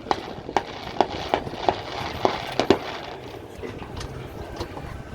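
Fireworks going off: sharp bangs about every half second with crackling between them, thinning out after about three seconds.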